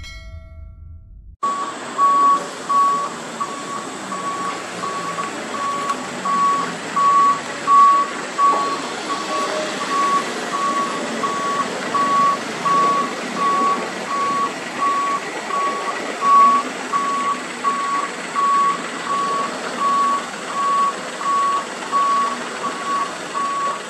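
Heavy truck's reversing alarm beeping steadily about once a second over the running diesel engine. It cuts in about a second and a half in, after a brief bit of music.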